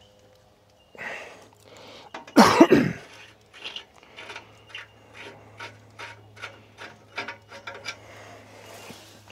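A man gives one loud cough or throat-clear. It is followed by a run of light sharp clicks or taps, about three a second.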